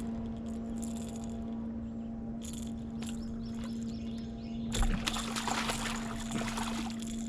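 Water splashing in a burst of about two and a half seconds, starting about five seconds in, as a hooked fish thrashes at the surface beside the kayak. A steady low electric hum runs underneath throughout.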